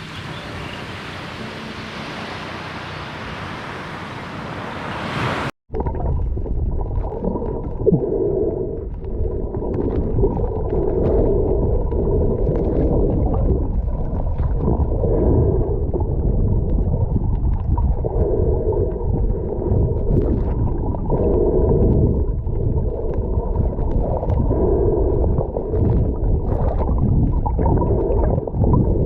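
Surf washing in as a steady hiss. After a sudden cut about five seconds in, it gives way to muffled, dull water sloshing and gurgling with no treble, swelling every couple of seconds.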